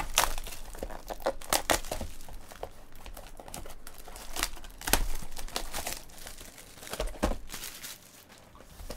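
Plastic wrapping on trading card boxes crinkling and tearing as it is pulled off by hand, in uneven crackles with a few sharper rips.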